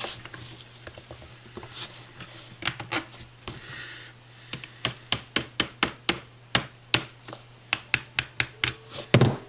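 Small brass-tipped hammer giving a quick run of light taps, about three a second from halfway in, the last one the loudest. It is driving a tight-fitting pin or part home in a plastic RC steering knuckle. Before the taps come soft rubbing and handling sounds of parts in the hands.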